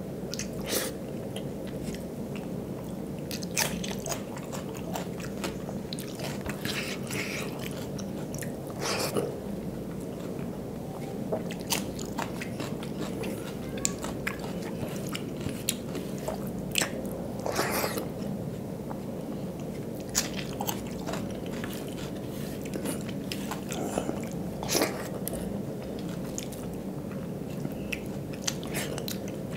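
Close-miked eating sounds: a man chewing and smacking his lips on hand-fed mouthfuls of rice mixed with dal and aloo chokha, with many short, sharp mouth clicks scattered over a steady low hum.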